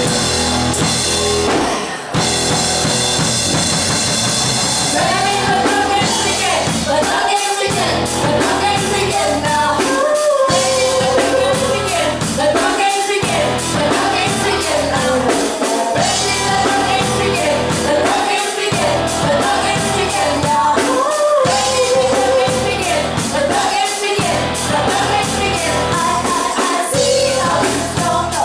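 A rock band playing a song with drum kit and singing. The drums keep a steady beat, and the vocal line comes in about five seconds in, after a brief drop in level about two seconds in.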